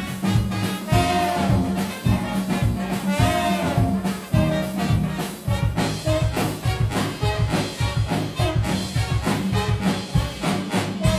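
Up-tempo swing music with brass over a steady beat.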